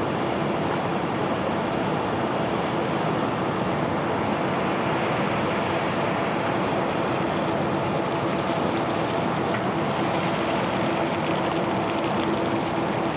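Steady rushing noise of a cargo barge unloading, with a faint, steady machine hum underneath.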